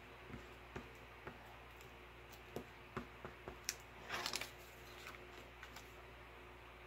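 Light clicks and taps of a glue stick and paper being handled on a tabletop, with a short paper rustle about four seconds in, over the steady hum of an air conditioner.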